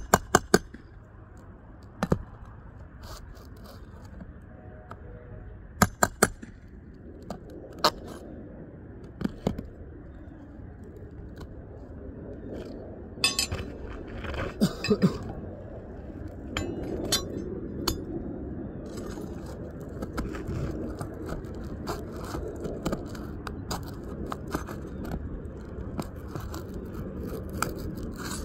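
Hand work on roof shingles: scattered sharp knocks and clicks, with scraping and rustling of material growing busier over the second half.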